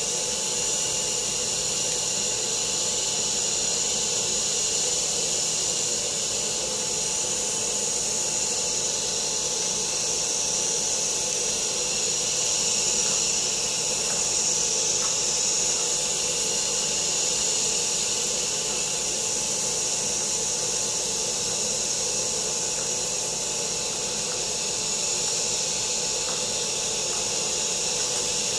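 LEGO Power Functions electric motor spinning the propeller of an air-driven LEGO car: a steady whir with the rush of air from the prop.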